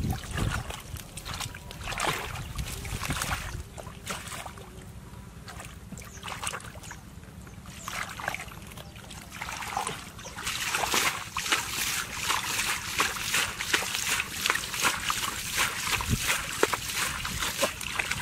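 Hands digging and groping in shallow muddy water, sloshing and squelching through wet mud in irregular bursts, with a denser run of splashing over the second half.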